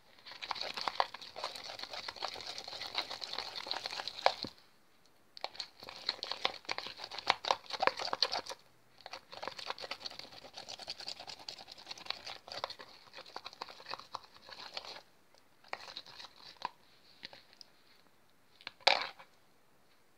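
Sticky glue-and-borax slime being stirred in a plastic bowl, a crackly, clicky stirring noise in long runs that pause briefly about four and eight seconds in and grow patchy later, with one short louder burst near the end.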